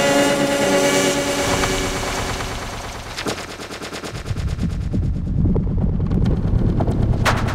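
Effect-processed animated-film soundtrack: a pitched, voice-like shout chopped into a rapid, machine-gun-like rattle by an audio effect. About four seconds in, the sound drops into a low, rumbling rattle.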